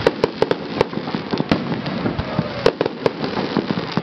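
Fireworks display with shells bursting in a rapid, irregular series of sharp bangs, about seven in four seconds.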